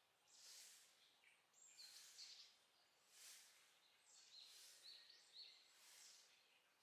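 Faint, even swishes of a broom sweeping the ground, about one stroke every second and a half, with a few short bird chirps in the second half.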